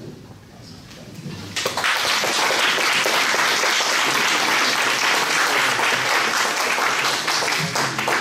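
Small audience applauding, starting about a second and a half in and then holding steady.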